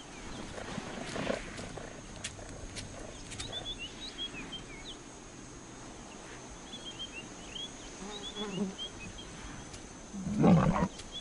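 A big cat growling: low growls about a second in and again near eight seconds, then a loud, short snarl near the end. Small birds chirp faintly in between.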